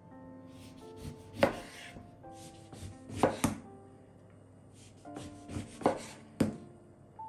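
Knife cutting on a cutting board: a handful of separate cuts, two in quick succession near the middle, over soft background music with plucked notes.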